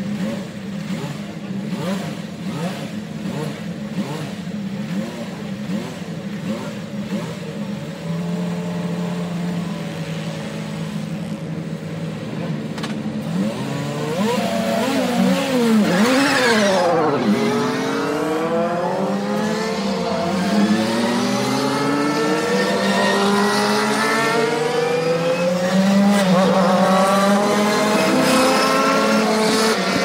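IndyCar race cars at a race start. For the first half, the field of engines runs at low, steady revs. About halfway through, the engines get louder and climb in pitch as the cars accelerate away, one dropping sharply in pitch as it passes close, with many overlapping rising whines toward the end.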